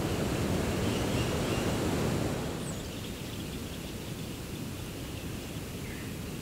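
Steady outdoor rushing noise, heaviest in the low end, that drops a little in level about two and a half seconds in; a faint short high chirp follows soon after.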